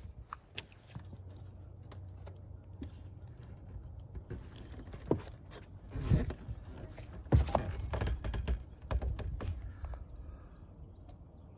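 Scattered sharp clicks and knocks, a few louder ones about five to seven seconds in and a quick cluster soon after, over a low steady rumble.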